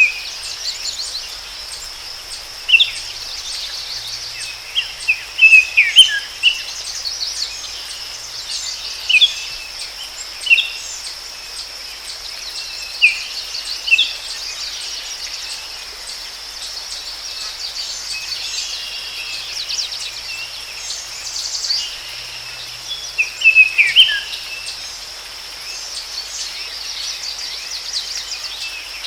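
Forest ambience: birds calling in short chirps and trills every few seconds over a steady, high insect drone.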